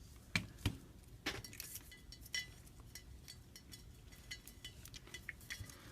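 Small repair tools clicking and clinking against the metal and glass of an opened iPhone 5c. There are a few sharper taps in the first two and a half seconds, then lighter scattered ticks.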